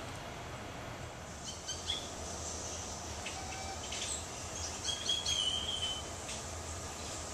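Birds chirping: several short high chirps, then one longer whistled note lasting about a second, about five seconds in, over a steady low hum.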